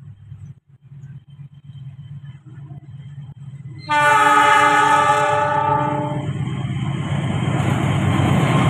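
Diesel-electric locomotive of an approaching passenger train running with a low engine rumble; about four seconds in it sounds its multi-note air horn in one blast of about two seconds, and the rumble then grows louder as the train nears.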